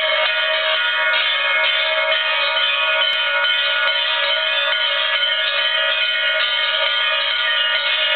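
Background music of steady, overlapping bell-like chiming tones.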